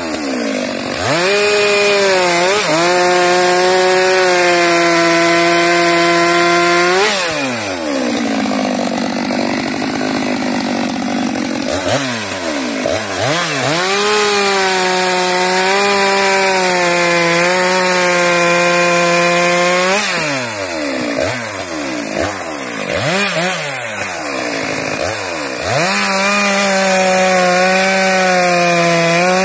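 Stihl MS 462 two-stroke chainsaw cutting through a log, held mostly at full throttle. Its pitch falls sharply when the throttle is eased about seven seconds in and again several times in the last third, each time revving quickly back up.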